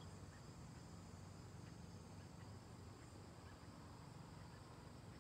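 Near silence: faint outdoor ambience with a steady high-pitched insect drone, typical of crickets, and a low steady rumble underneath.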